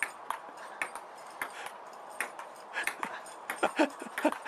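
Table-tennis ball clicking on the table and paddles, a few sharp hits a second at an uneven rally pace. A dog gives several short whines near the end.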